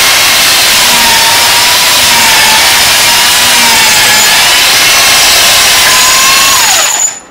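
Handheld electric belt sander running against the edge of a particle-board workbench top, grinding it flush and square with a steady, loud whine. Near the end the whine drops in pitch and the sound cuts out.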